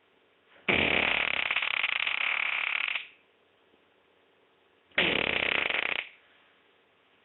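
Fart sound effect: a long fart of about two seconds, then a shorter one of about a second, both with a rough, rasping texture.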